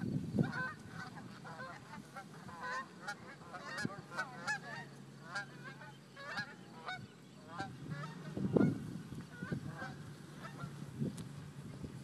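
A flock of birds calling, many short honking calls one after another that thin out after about eight seconds. A faint steady engine hum runs underneath from about four seconds in, and there is a low thump about eight and a half seconds in.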